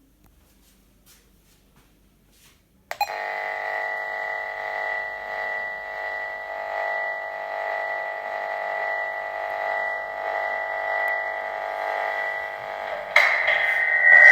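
Outdoor call panel of a video intercom giving off an unwanted steady electronic tone through its speaker, a fault-like stray noise. It starts suddenly about three seconds in, holds steady, and turns louder and rougher near the end.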